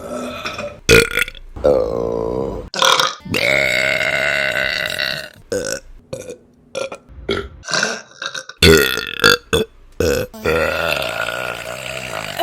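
A string of women's burps cut one after another, several of them long and drawn out, up to about two seconds each, with shorter burps between them.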